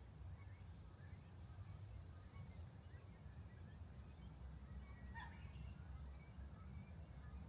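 Faint, scattered bird calls, with one clearer short call about five seconds in, over a steady low rumble.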